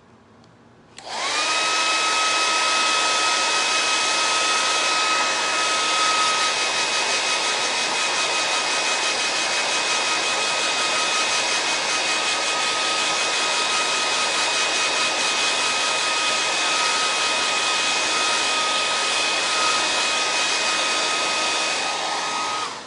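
Hand-held hair dryer drying freshly applied chalk paste on a wooden star. It switches on about a second in, its whine rising as it spins up, then runs steadily as a loud rush of air with a steady whine, and cuts off near the end.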